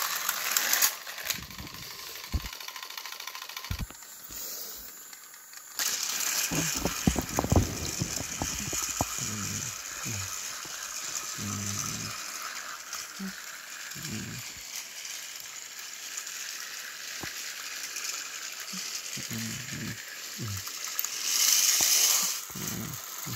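Battery-powered Thomas & Friends toy train engines running on plastic track: a steady motor whir with rattling and many short low knocks. There is a louder rustling burst near the end.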